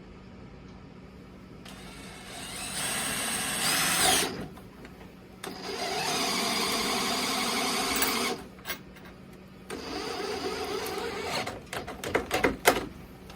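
Handheld power driver running in three bursts of a few seconds each as it drives in the bolts holding the drill press down to its base, followed by a quick string of sharp clicks near the end.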